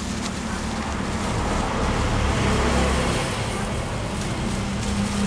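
Steady background road-traffic noise, a low rumble with a hiss over it, swelling slightly in the middle.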